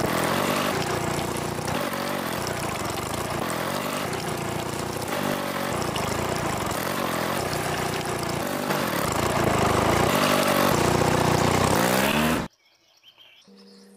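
Miniature toy diesel-engine water pump running, with a wavering engine pitch over water splashing; the sound cuts off abruptly about twelve and a half seconds in.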